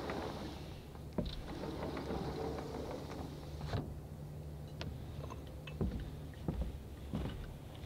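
Steady low outdoor rumble with a few light knocks. From about six seconds in come footsteps at a walking pace, a step roughly every 0.7 seconds.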